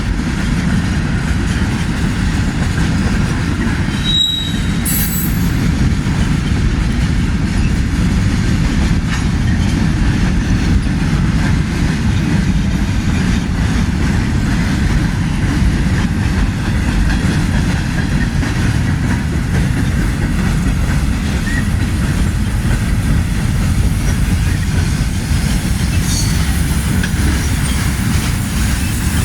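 A slow-moving mixed freight train rolling past, its wheels on the rails making a steady low rumble, with a short high wheel squeal about four seconds in.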